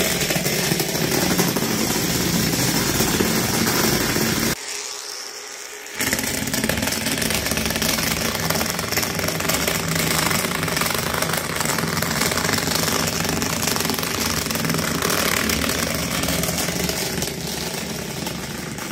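Small DC motor of a homemade battery-powered toy car running steadily as the car drives across a tabletop. The sound drops away for about a second and a half some five seconds in, then carries on.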